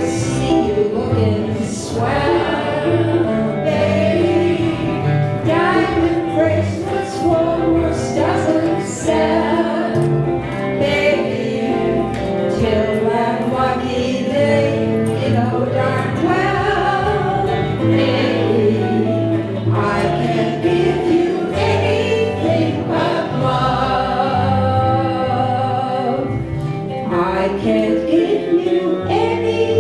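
A live band playing a song: a woman singing lead with other voices joining, over electric bass guitar and two guitars, picked up by the camera's own microphone.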